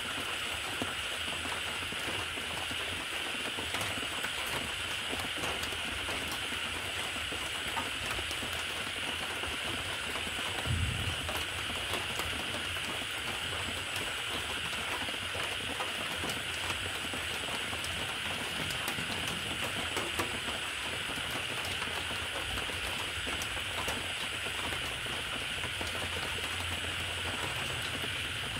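Steady rain: an even hiss with a fine patter of drops throughout, and a single low thump about eleven seconds in.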